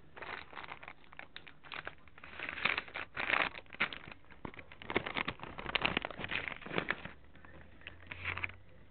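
Irregular bursts of rustling and crinkling from close handling, louder from about two and a half seconds in and dying away near the end.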